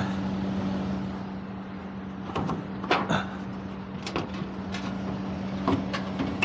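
Scattered knocks and clatters of metal parts being handled while an air-conditioner outdoor unit is opened up, over a steady low hum.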